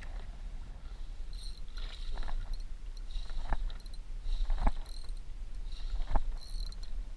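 Wind rumbling on the camera microphone aboard a small boat while a fish is hooked on an ultralight jigging rod, with four sharp knocks and short high-pitched buzzes from the spinning reel as the fish pulls.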